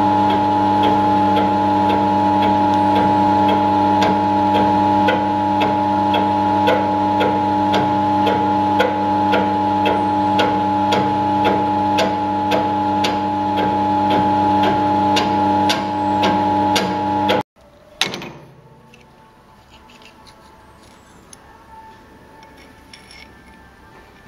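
A workshop machine running steadily with a humming tone and a regular light ticking about twice a second, which cuts off abruptly about seventeen seconds in. A single sharp knock follows, then only faint scattered small sounds.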